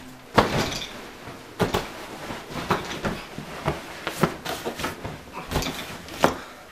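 Someone rummaging through furniture: irregular knocks and thumps, about one every second, over rustling as things are shoved and moved around.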